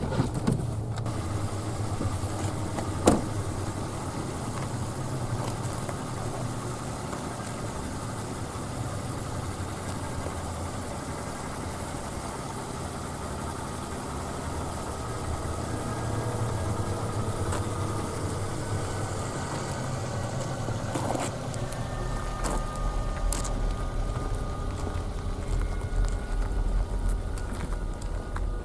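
A car's engine idling steadily, with the car door opening at the start and shutting about three seconds in. A deeper low rumble comes in about three-quarters of the way through.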